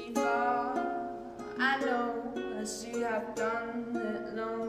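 Acoustic guitar playing an instrumental passage between sung lines: picked chords ringing and changing every second or so, in a small room.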